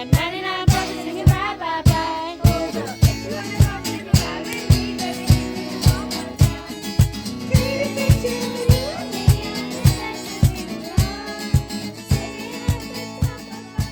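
A band song with singing, guitar and a steady kick drum beat, a little under two beats a second.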